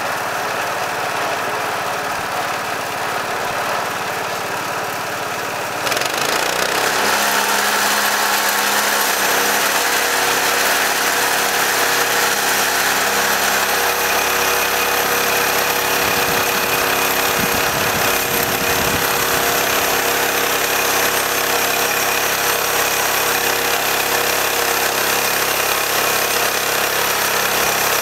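Bandsaw mill's gas engine running steadily, then about six seconds in it speeds up and gets louder as the band blade saws through a pine log.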